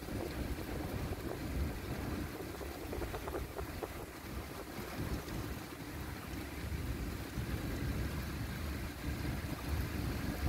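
Thunder from a thunderstorm rumbling on without a break, a low, uneven rumble that rises and falls.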